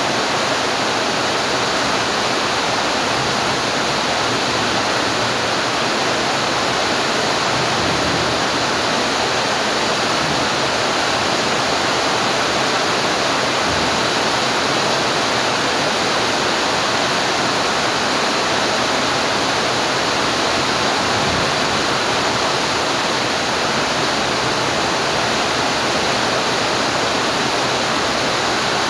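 Steady heavy rain: an even, unbroken hiss with no separate drops standing out, holding level throughout.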